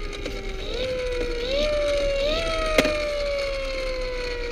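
Electronic sound effect from a Tonka Strong Arm toy fire truck: a single tone that steps up in pitch three times, then slides slowly down. A sharp click about three seconds in.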